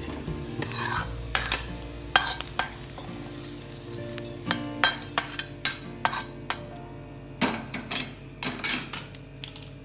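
Steel spoon scraping and clinking against a stainless steel kadhai as dry-roasted onion and coconut masala is scooped out and tipped into a steel mixer-grinder jar: a run of irregular clinks and scrapes.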